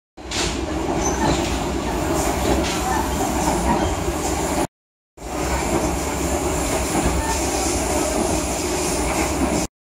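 Steady running noise inside a moving passenger train coach: a low rumble with a hiss over it from the wheels and running gear on the track. It breaks off briefly about halfway through and resumes.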